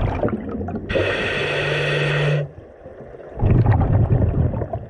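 Scuba diver breathing through a regulator. A hissing inhalation with a steady low whine lasts about a second and a half, and after a short pause comes a second of bubbling exhaled air.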